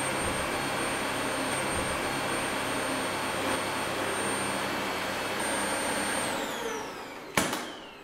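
Dyson Light Ball Animal upright vacuum cleaner running on carpet, a steady motor noise with a high whine. About six seconds in it is switched off and the whine falls as the motor spins down, with a sharp click near the end.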